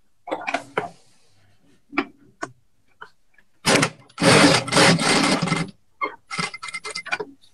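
Jack A2S industrial lockstitch sewing machine sewing a programmed line in one run of about a second and a half and stopping by itself, then a string of short stitching bursts near the end. There are a few small clicks and knocks in the first seconds.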